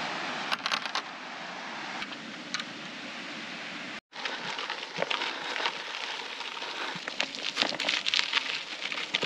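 Gravel bike tyres rolling over a loose, stony gravel track: a steady crunch with many small crackles and clicks of stones, busiest in the second half.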